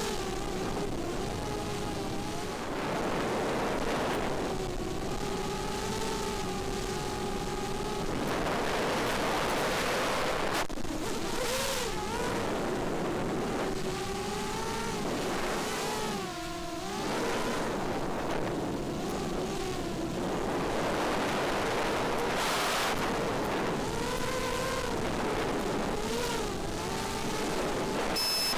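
Four brushless motors of a 5-inch FPV racing quadcopter (2204 2300kv motors on 5045 bullnose props) heard from the onboard camera, a buzzing whine whose pitch rises and falls continuously with throttle, over wind rush. The whine sinks and drops in loudness briefly about sixteen seconds in.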